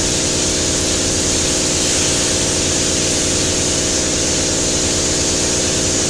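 Paint spray gun hissing steadily with compressed air, over an unchanging mechanical hum.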